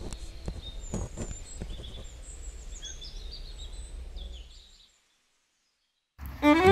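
Outdoor ambience of birds chirping over a low rumble, with a few soft knocks in the first couple of seconds; it fades out about three-quarters of the way through. After a second of silence, music with a violin starts near the end.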